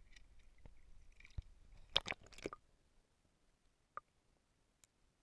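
Creek water splashing and sloshing as a hand lowers a brook trout into it, with a cluster of sharp splashes about two seconds in. Then the sound turns muffled and near quiet as the camera goes underwater, with a couple of faint clicks.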